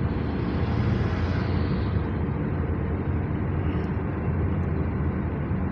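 Honda BR-V being driven: steady engine and road rumble, with a hiss that swells and fades over the first two seconds. No braking knock stands out.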